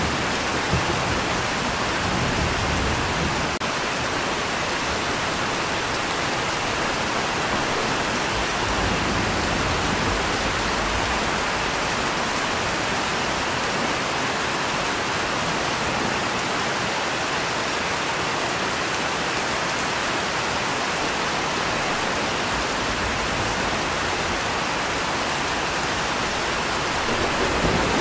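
Steady rain falling, an even hiss. A low rumble of thunder fades away in the first second, and another begins to build right at the end.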